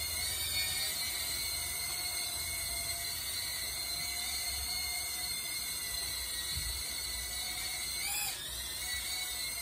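Small toy quadcopter drone in flight, its motors and propellers giving a steady high whine that wavers in pitch as it is steered, rising briefly about eight seconds in.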